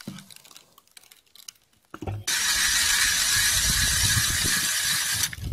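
Hand ice auger drilling through river ice: a steady grinding scrape that starts abruptly about two seconds in and stops just before the end.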